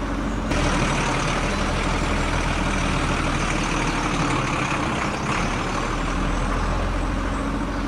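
Heavy diesel engine running steadily with a loud mechanical noise over a low hum, growing louder about half a second in.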